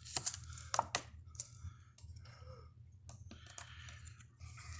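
A coin scraping and tapping on a scratch-off lottery ticket: short, scattered scrapes and clicks.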